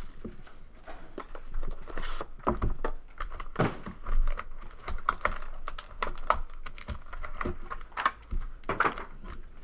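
Packaging of a trading card box being opened by hand: irregular crinkling and tearing of wrapper with scattered clicks and knocks as the cards are pulled out and handled.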